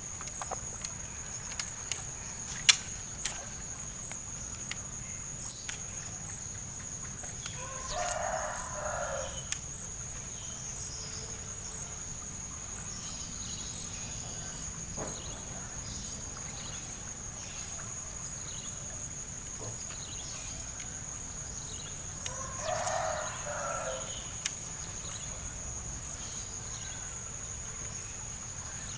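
A rooster crowing twice, about fifteen seconds apart, each crow about a second and a half long, over a steady high insect drone. A few sharp clicks sound in the first few seconds.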